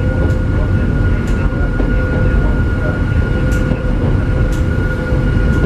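Hakone Tozan Railway Moha 1-class electric railcar running, heard from inside its rear cab: a heavy steady rumble of wheels and running gear with a steady whine on top. A few faint ticks come through at uneven intervals.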